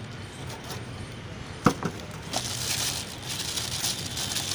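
Clear plastic bag crinkling and rustling as a nebulizer's compressor unit is handled and drawn out of it, with a sharp click about one and a half seconds in.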